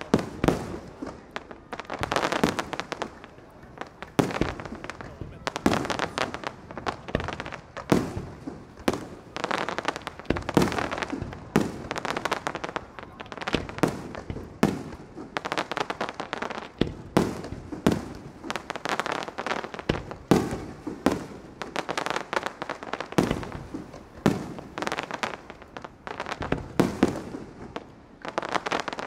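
Fireworks display: aerial shells bursting one after another, sharp bangs coming several a second at times, with no pause.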